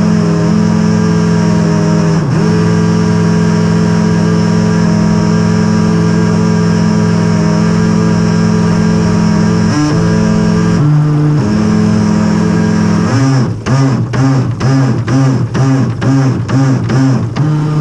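Background music led by guitar, with long held chords that change pitch in steps. In the last few seconds it turns into a choppy, fast-repeating figure.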